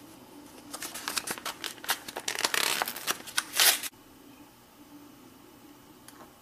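A roll of 3M double-sided mounting tape being handled and unwrapped from its card-and-plastic packaging: a quick run of rustling, crinkling and scratching for about three seconds that cuts off suddenly, then faint room tone.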